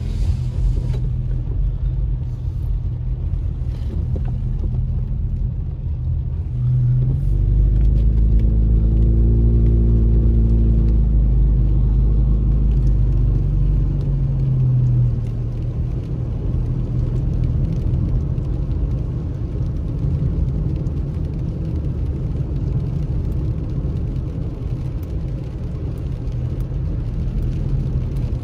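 Car engine and tyre noise on wet pavement, heard from inside the cabin while driving: a steady low rumble. From about seven seconds in it swells louder for several seconds, with an engine hum that rises and then falls in pitch as the car pulls away, before settling back.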